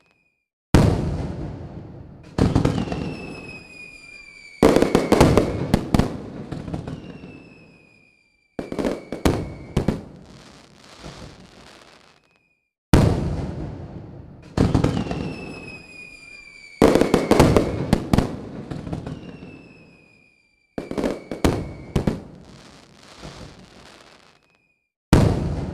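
Aerial firework shells bursting overhead, about nine sudden bangs each dying away over a second or two with crackling, several followed by whistles that slide down in pitch. The sound cuts off abruptly to silence a few times between bursts.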